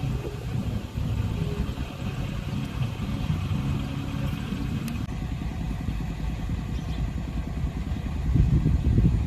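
A vehicle engine running steadily with a low rumble, growing louder about eight seconds in.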